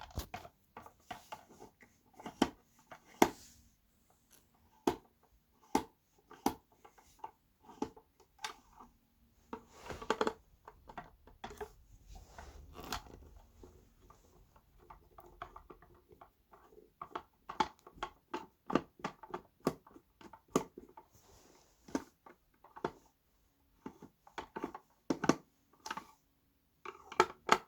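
Phillips screwdriver backing screws out of a plastic speaker enclosure: irregular small clicks, ticks and scrapes of the driver tip and the screws, with the case being handled and shifted.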